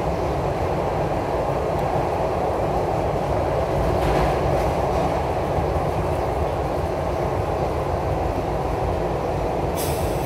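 SEPTA Broad Street Line subway train running through a tunnel, heard from inside the front car: a steady rumble of wheels on rail. A brief high hiss comes near the end.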